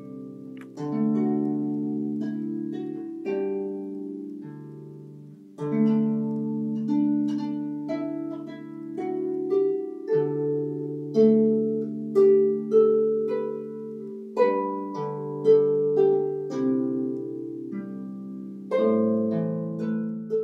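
Solo harp playing slow music of plucked chords and single notes, each ringing and dying away.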